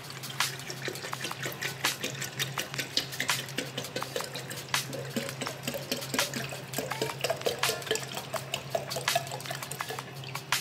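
Water pouring from a plastic bottle into a stainless-steel electric kettle, splashing irregularly, with a tone that rises in pitch over the second half as the kettle fills.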